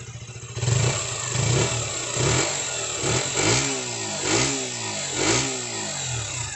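Sports motorcycle on its stock exhaust idling, then revved in about six short throttle blips, the engine note rising and falling with each.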